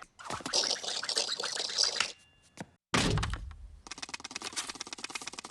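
Film sound effects: a dense rattling clatter for about two seconds, then a heavy thunk with a deep low end about three seconds in, followed by rapid, evenly spaced clicking.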